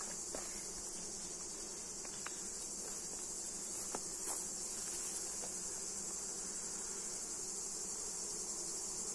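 Honeybees buzzing over an open hive, under a steady high-pitched insect drone, with a few faint clicks from the wooden frames being handled.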